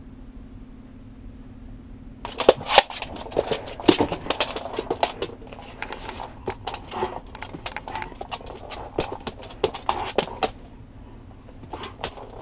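A German Shepherd's claws scratching and clicking rapidly on a hardwood floor as it scrabbles after a flashlight spot. The dense patter starts about two seconds in, dies down briefly near the end, then picks up again, over a low steady hum.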